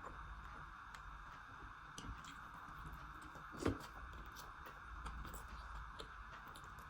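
A person chewing food, mouth sounds with scattered small clicks and one louder click a little past halfway, over a steady faint hiss.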